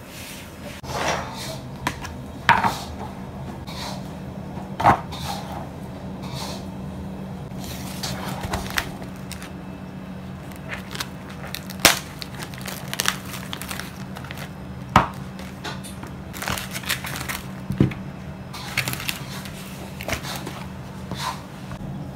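Fruit and dishes being handled on a table: a string of irregular knocks and clatters from plastic fruit containers and a plate being set down, with some crinkling of plastic, over a steady low hum.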